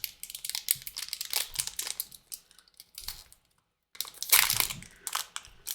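A trading-card pack wrapper being handled and torn open, with a run of crinkling crackles, a short pause, then a louder spell of crinkling.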